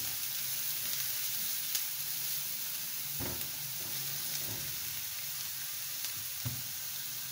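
Chopped onion and garlic sizzling in oil in a nonstick frying pan and being stirred with a silicone spatula, with a couple of soft knocks. The onion is being lightly sautéed, not browned.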